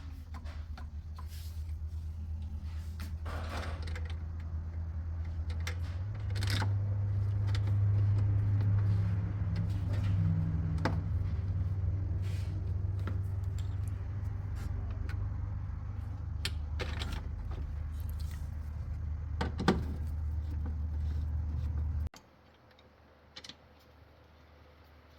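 Scattered metallic clicks and knocks of hand tools tightening the bolts of a washing machine's drain motor, over a steady low hum. The hum cuts out abruptly a few seconds before the end.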